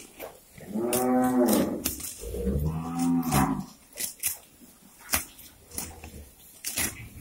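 Cattle mooing twice: one call about a second in and a lower, deeper one around three seconds in. Short crisp rips follow, of grass being torn off by grazing cows.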